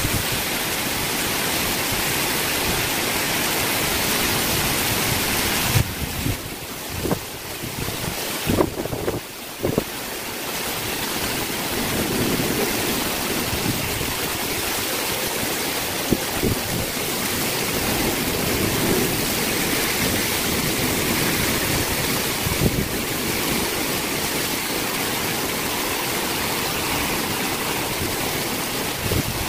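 Heavy rain falling in strong wind: a steady rush of downpour, with wind buffeting the microphone. About six seconds in, the noise drops and breaks up for a few seconds, with a few knocks, then the steady rush returns.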